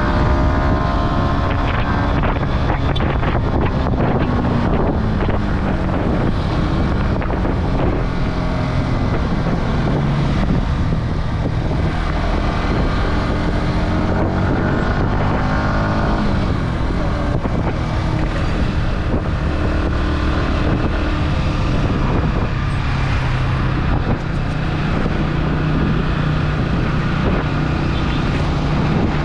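Yamaha R15's 155 cc single-cylinder engine running under way, its pitch falling in the first couple of seconds, climbing over several seconds around the middle, and holding fairly steady near the end, with wind noise on the microphone.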